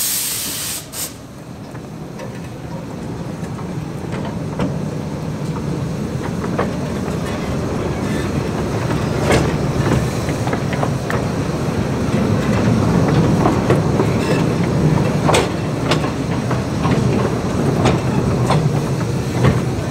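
Miniature steam locomotive Lady Jane Grey hissing steam as it starts its train; the hiss stops about a second in. The coaches then roll past, their wheels rumbling and clicking over the rail joints, getting louder as the train goes by.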